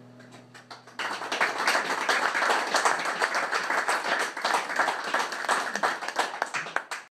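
The last acoustic guitar chord fades out, then a small audience starts clapping about a second in. The clapping stops abruptly near the end.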